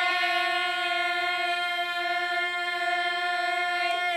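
One long held musical note, steady in pitch and rich in overtones, sustained for over four seconds before fading out.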